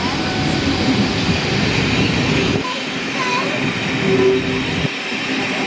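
Locomotive-hauled railtour train of Class 50 diesels, coaches and a Class 37 running over a level crossing: a steady noise of wheels on rail.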